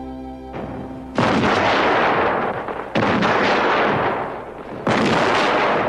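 Orchestral music ends in the first moment. Then three loud blasts of black-powder gunfire from an 18th-century battle come about two seconds apart, each dying away over a second or so.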